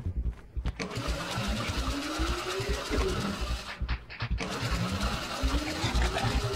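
Rapid mechanical rattling whir that climbs in pitch as it speeds up, heard twice: a first run of about three seconds, a short break, then a second rising run.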